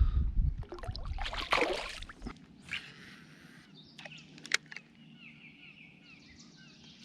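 Small birds chirping in a repeated run of short falling chirps, which starts after a low rumble and a couple of brief noisy rushes in the first two seconds. A sharp click comes about four and a half seconds in.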